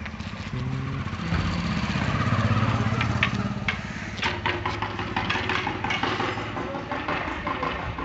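A motor vehicle's engine running and growing louder, loudest two to three seconds in, then easing off. In the second half come scattered sharp knocks and clicks.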